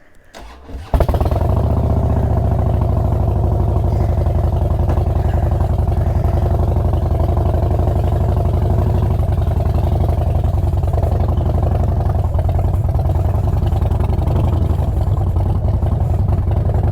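Loud motorcycle engine starting about a second in, then idling steadily.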